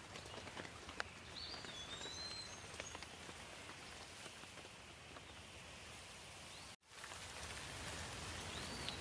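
Steady rainfall with scattered drops pattering, and a bird chirping briefly a couple of times. The sound cuts out for an instant about two-thirds of the way through, then the rain resumes.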